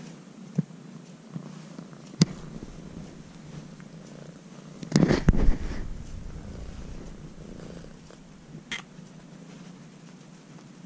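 Young orange-and-white tabby kitten purring steadily while being patted and stroked on its lower back. About five seconds in there is a short loud burst of noise, and a few light clicks are scattered through.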